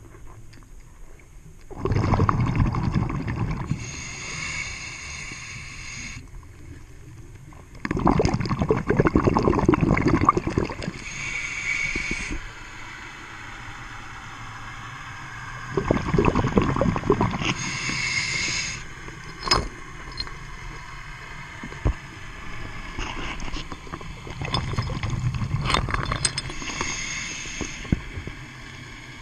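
A scuba diver breathing through a regulator underwater: about four breaths, each a bubbling gush of exhaled air and a hissing draw of air through the demand valve.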